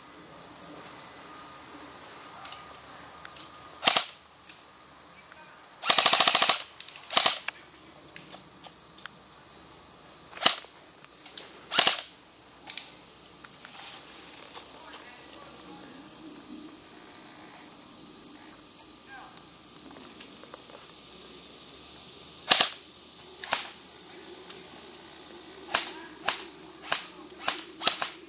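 Airsoft guns firing scattered single shots, with a short rapid-fire burst about six seconds in and a quick run of shots near the end, over steady crickets chirping.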